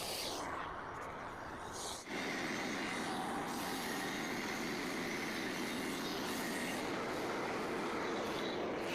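Portable bandsaw sawmill running, its small engine and blade making a steady mechanical noise. About two seconds in it gets louder and holds steady, with a thin high whine.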